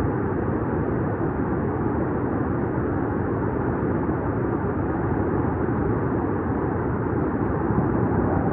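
Flash floodwater rushing: a loud, steady, unbroken noise.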